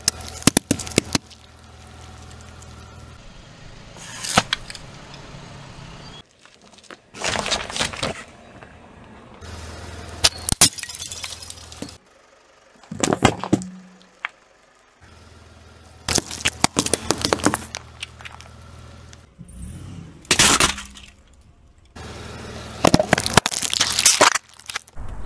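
A car tyre rolling over and crushing objects one after another. It makes a string of separate crunches, cracks and pops, about eight in all, with a low steady hum between them.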